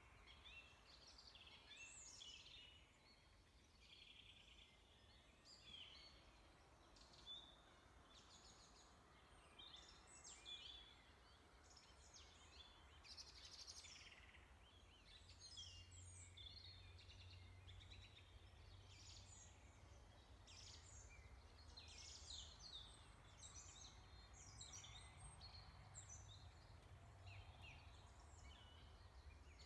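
Faint birds chirping, many short calls throughout, over a steady low hum.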